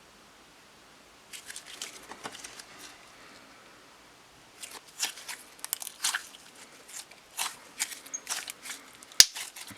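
Clear slime being squished and kneaded by hand, giving off irregular sticky clicks and pops. A few come about a second in, then they thicken from about halfway, with one sharp snap near the end.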